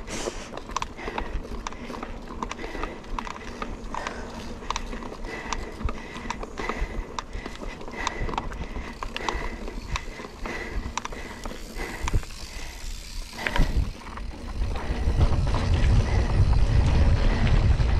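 Mountain bike ridden hard over a rough dirt trail, its frame and chain rattling in a dense run of sharp clicks. About fourteen seconds in, a louder low rumble builds and takes over.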